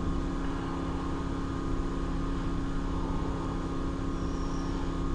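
Portable generator engine running steadily, a constant drone.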